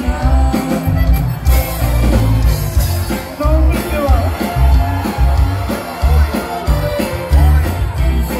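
Live Tejano band playing, with a male lead singer over accordion, guitar and drums and a pulsing bass line.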